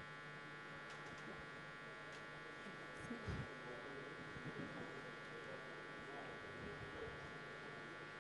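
Faint, steady electrical buzz from the audio system, with a few faint low bumps about three seconds in.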